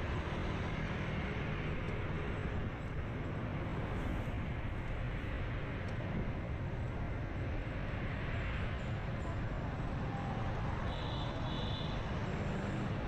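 Steady road traffic noise and vehicle engines running while travelling along a busy city street. A few short high beeps near the end.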